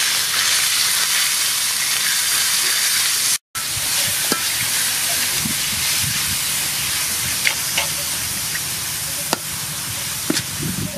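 Chopped pork and garlic sizzling in hot soybean oil in a pan: a steady, dense hiss, with a few light clicks of a utensil stirring against the pan. The sizzle breaks off for an instant about three and a half seconds in.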